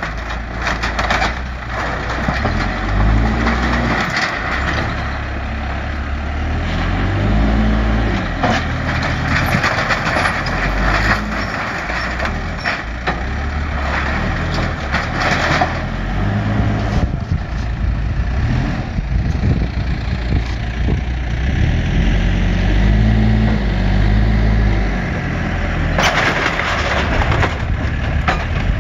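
Case backhoe loader's diesel engine working under load, revving up and down several times as its loader bucket pushes into a barn wall. Bursts of wood cracking and crunching as the barn's timbers and metal siding give way, the loudest near the end.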